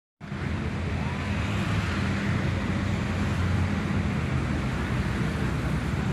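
Steady road traffic noise, with motorbike and car engines making a low hum. The sound drops out for an instant at the very start.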